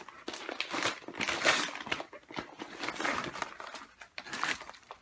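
Packaging of a mailed parcel rustling and crinkling in irregular bursts as it is handled and pulled open, with louder scrunches about one and a half, three and four and a half seconds in.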